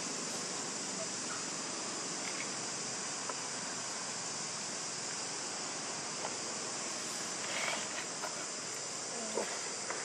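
Steady, high-pitched insect chorus, with a few faint ticks and rustles over it.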